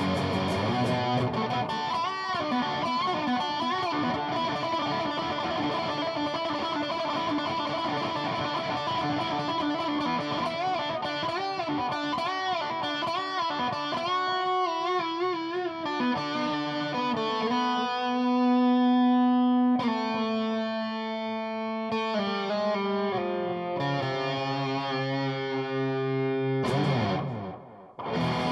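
Gold-top Les Paul electric guitar played lead: quick runs with wavering bent notes, then long held notes with vibrato from about halfway, and a fast slide down in pitch near the end.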